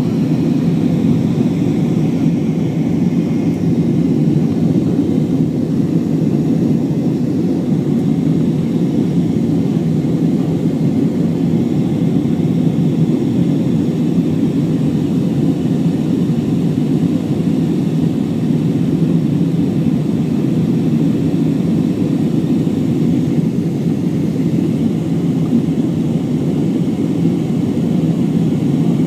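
Steady low drone of an Airbus A320 in flight, engine and airflow noise heard from inside the passenger cabin, with no change in pitch or level.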